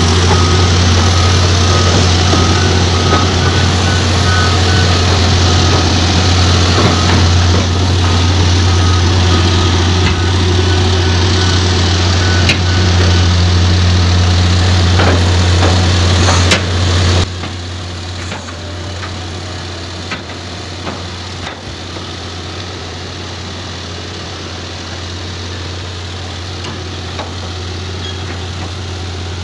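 Caterpillar crawler dozer's diesel engine running with a loud steady low drone, and a backup alarm beeping repeatedly through the first half. About two-thirds of the way in, the engine sound drops suddenly and carries on quieter.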